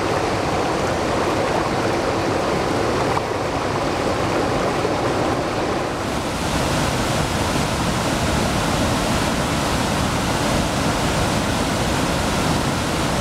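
Waterfall and whitewater rapids of the Baptism River at High Falls, a steady rush of falling and churning water, turning hissier about halfway through.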